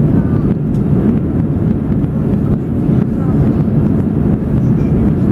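Airbus A320 cabin noise during the climb after takeoff: the engines' steady deep rumble and the rush of air along the fuselage, heard from a window seat inside the cabin.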